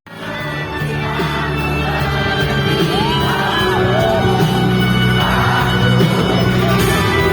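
Live pop-rock band playing at a concert, with the crowd singing and whooping along. The sound cuts out for an instant at the start and swells back in over about a second.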